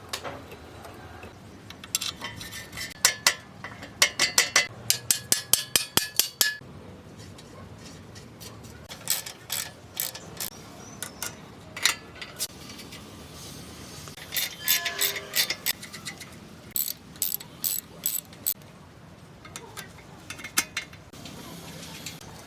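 Ratchet wrench clicking in several bursts of quick, even clicks, with short pauses between them.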